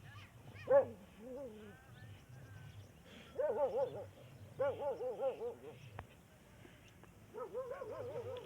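A dog giving short, high-pitched yelps in three quick runs, with a single sharp click about six seconds in.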